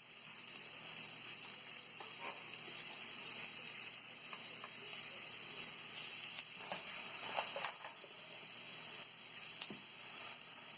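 Onions, chillies and spices sizzling as they fry in oil in a kadai, with a few light clicks of stirring.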